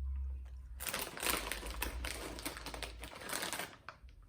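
Kettle-cooked potato chips crunching and their bag crinkling: a run of crisp, irregular crackles starting about a second in.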